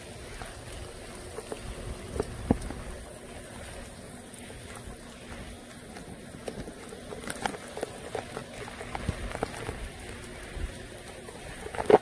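Rain falling steadily, with many scattered louder drops hitting nearby surfaces.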